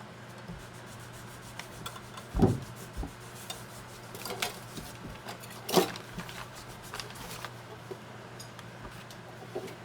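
Small clicks, taps and rubbing from hands and tools working on a mandolin's wooden body and a small glued cleat, with two louder knocks about two and a half and six seconds in. A steady low hum runs underneath.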